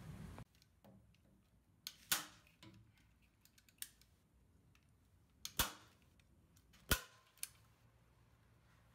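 Sharp clicks and knocks of a plastic transducer mounting bracket being handled and fitted against the jon boat's aluminum hull. There are about six, spread a second or more apart, and the two loudest come a little past halfway; one of them rings briefly.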